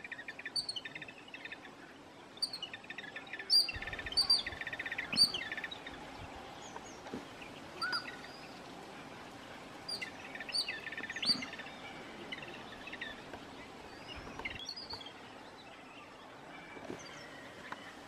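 Babblers calling: harsh, rapid chattering in several short bouts, with sharp high squeaky notes in between.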